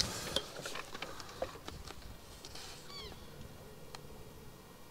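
A short animal cry that rises and falls in pitch, heard once about halfway through, over a few faint clicks.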